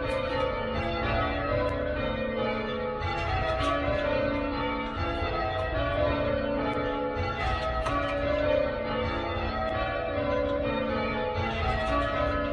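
Church tower bells rung full circle in change ringing, struck one after another in a steady, overlapping succession just after the start call 'treble's going, she's gone'.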